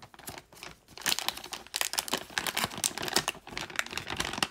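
Crinkling and rustling of a foil zip-lock pouch being handled, a dense run of irregular crackles starting about a second in.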